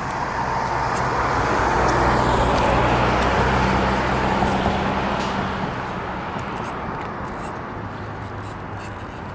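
A motor vehicle passing by: engine hum and tyre noise swell over the first few seconds and then fade away.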